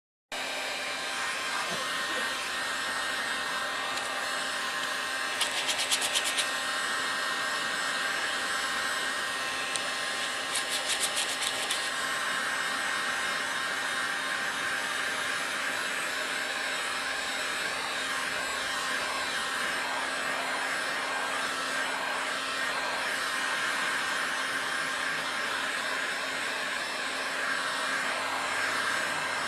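Hot air gun blowing steadily: a constant fan and motor whine with a low hum, heating the painted aluminium cover to soften the paint for stripping. Twice, about six and about eleven seconds in, a brief rapid rattling scrape cuts in over it.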